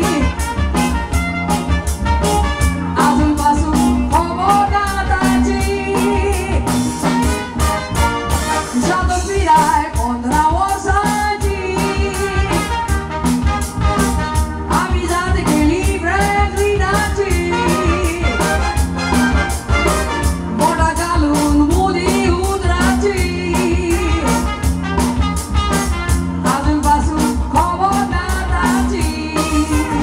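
A woman singing over a live band playing an upbeat song with a steady beat, bass guitar and drums underneath.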